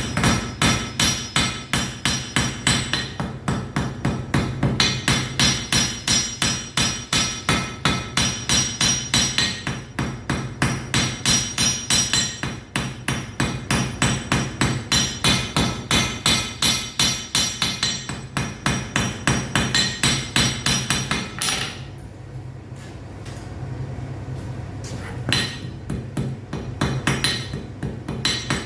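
Blacksmith's hammer striking metal on an anvil in a quick, even rhythm of about three to four ringing blows a second. The blows pause for a few seconds near the end, then resume. A steady low hum runs underneath.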